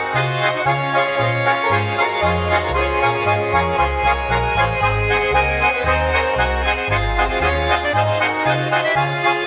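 Swiss folk music played by a Schwyzerörgeli quartet: Swiss diatonic button accordions playing a lively tune over a bass line that changes note several times a second.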